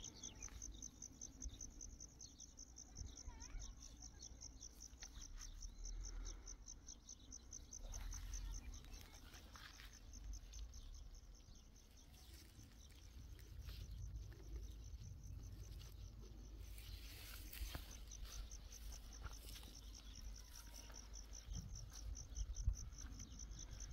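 Insects trilling steadily in a fast, high-pitched pulse, thinning out briefly about two-thirds of the way through, over a faint low rumble.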